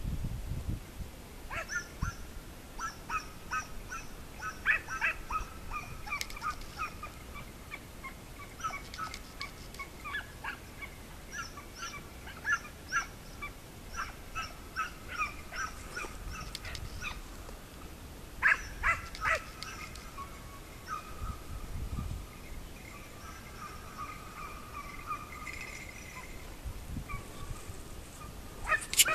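Hunting dogs giving tongue at a distance: a long run of short yelping barks in irregular clusters. A sudden loud noise comes at the very end.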